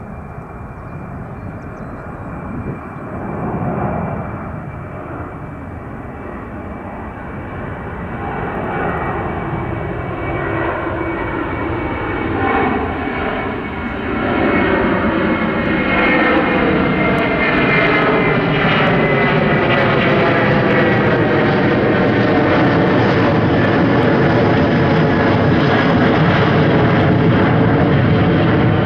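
The twin Pratt & Whitney PW4000 turbofans of a Korean Air Airbus A330-300 at takeoff power as it climbs out overhead. The jet engine noise grows louder over the first half and then holds steady, with a slow swirling, phasing sweep as the aircraft passes over.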